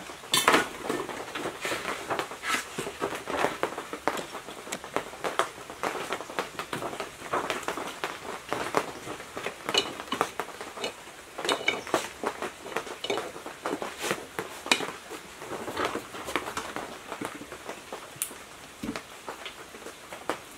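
Irregular metallic clinks, taps and knocks as tools and painted metal water-pump parts are handled and fitted together, including an adjustable wrench working on a fitting of the pump cap.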